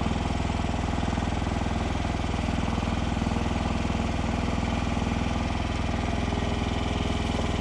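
Mini skid steer's engine running steadily at an even speed, with no change in pitch or load.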